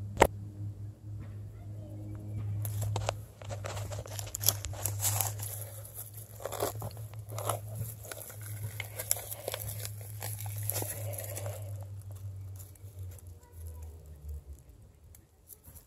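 Dry grass, twigs and dead leaves rustling and crackling, with roots and soil tearing loose, as a hand pulls up a clump of grass. A sharp click comes just at the start, and a steady low hum runs underneath until near the end.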